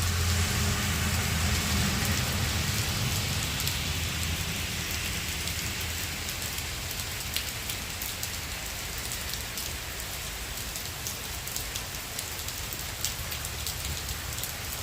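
Heavy tropical-storm rain falling steadily, a dense hiss with scattered sharper drop taps. A low rumble underneath fades away over the first several seconds.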